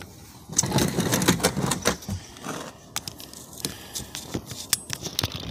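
Handling noise and clatter at a car door: rustling and scraping with a dense run of sharp clicks and knocks for about a second and a half, then scattered single clicks and a louder knock at the very end.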